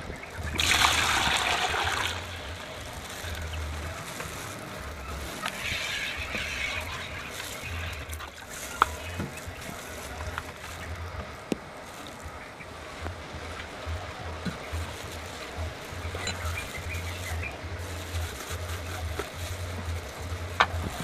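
Green acid solution poured from a small plastic bucket into a larger one, splashing for about a second and a half near the start, followed by a softer splash a few seconds later.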